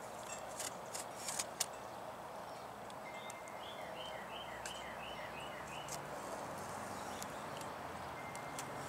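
A few sharp clicks and rustles from a cardboard box being opened in the first second and a half, over steady outdoor ambience. From about three to six seconds in, a bird sings a run of about seven quick repeated two-part notes.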